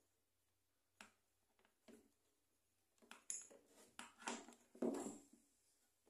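Faint handling noises: a couple of single clicks, then a short run of clicks and light clattering about halfway through, as small hard parts are moved about.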